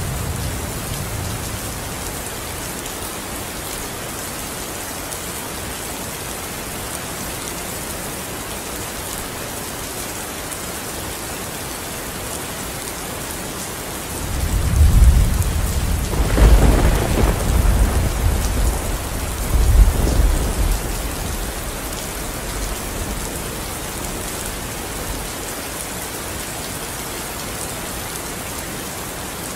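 Steady rain falling. The tail of a thunder rumble fades out in the first second, and about halfway through a long roll of thunder begins, cracking sharply near its start and rumbling on for several seconds before dying away.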